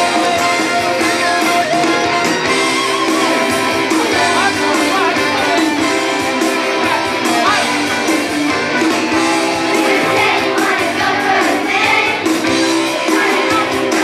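Music: a chorus singing with instrumental accompaniment, steady and loud throughout.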